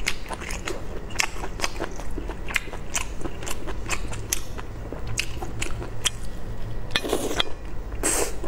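Close-miked chewing of braised baby octopus: wet, sharp clicks and crunches from the mouth, a few each second at an uneven pace. Two short, louder rushes of noise come near the end.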